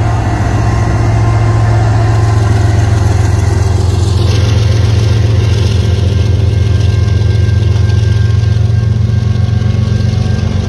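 Diesel freight locomotive engine running loudly as the train passes through the grade crossing. A steady hiss joins about four seconds in.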